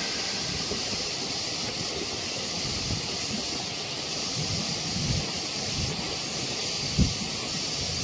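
Twin waterfall's water plunging into its pool, a steady rush, with a brief low thump about seven seconds in.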